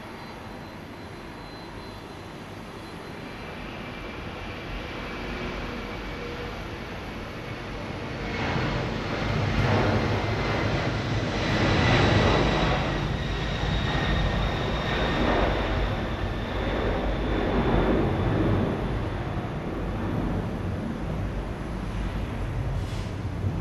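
Boeing 767-300 freighter's twin jet engines at takeoff thrust through the takeoff roll, rotation and climb-out. The rumble grows louder from about eight seconds in and is loudest around twelve seconds as the jet passes, with a high whine that slowly falls in pitch, then carries on as a steady rumble while it climbs away.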